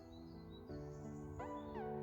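Background music: sustained chords that step from one to the next, with a sliding note near the end, growing louder.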